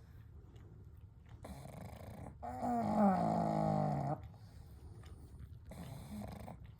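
Sleeping pug snoring: a soft breath, then a louder snore with a wavering pitch lasting under two seconds, then a fainter breath near the end.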